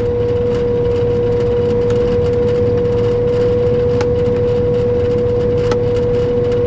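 Combine harvester running with its separator engaged: a steady machinery hum with a constant whine, and a couple of faint clicks.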